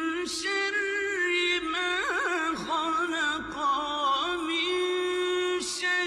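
A solo voice chanting Quranic recitation in a melodic style: long held notes with wavering melismatic ornaments and a few sibilant syllables.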